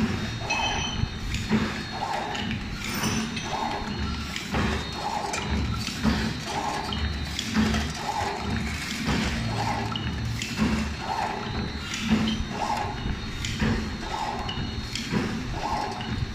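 Back-side-sealing sugar sachet packing machine running continuously, with a regular thump and clack repeating about once a second as each sachet is filled, sealed and cut, over a steady mechanical hiss and a faint high steady tone.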